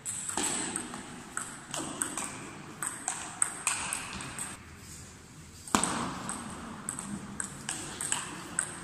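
Table tennis rally: the ball clicking off bats and table in quick succession, a short lull a little past halfway, then a louder, sharper hit followed by more quick clicks. The hits echo in a large sports hall.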